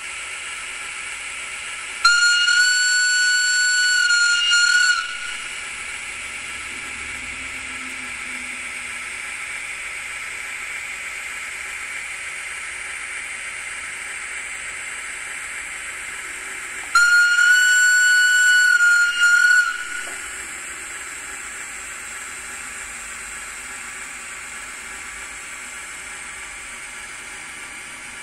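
Sound decoder of an N-scale model Rhaetian Railway Ge4/4II electric locomotive sounding its horn twice through the model's tiny speaker, each blast a single held tone of about three seconds, over a steady hiss.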